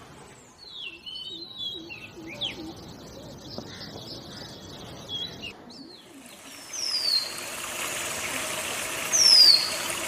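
Male Oriental magpie-robin singing: a varied run of clear whistles and short chattering notes, then, over a steady hiss, separate falling whistles a couple of seconds apart. The loudest whistle comes about nine seconds in.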